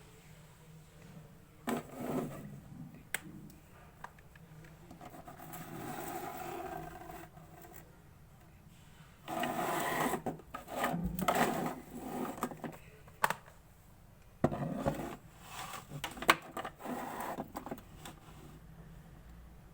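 Clear slime being mixed and squished by hand: irregular sticky squishes, clicks and scrapes that come in bursts of a second or two.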